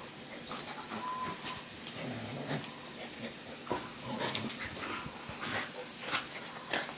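Two dogs play-wrestling, with growls, whimpers and panting in irregular short bursts; a brief high whine about a second in.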